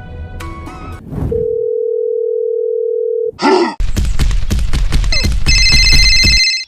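A steady telephone dial tone lasting about two seconds, after music fades out. It is followed by a loud, dense rattling clatter with a deep rumble, with high steady ringing tones over its last second or so, cutting off suddenly.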